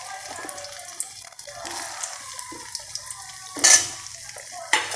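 Paneer cubes sizzling as they fry in hot oil, with a slotted metal spatula stirring them. The spatula clatters sharply against the pan twice, about three and a half seconds in and near the end.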